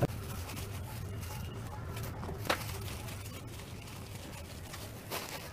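Bubble wrap rustling and crinkling as it is handled and pulled from a cardboard box, with two sharp crackles, over a low steady hum.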